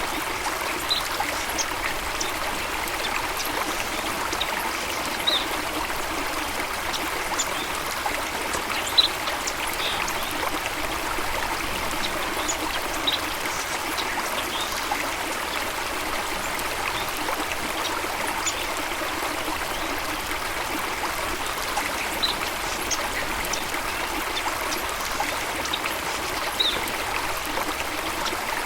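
Water running steadily in a stream, with short high-pitched blips scattered through it.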